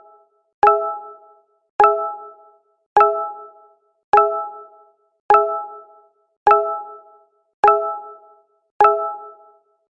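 Google Hangouts notification sound played over and over: a short chime of a few mixed tones that strikes sharply and fades within a second, repeating evenly about every second and a bit, eight times here.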